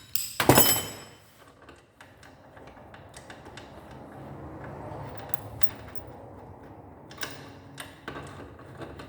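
Metal parts being handled on a workbench: a loud clatter of washers and tools about half a second in, then a few light clicks and knocks near the end.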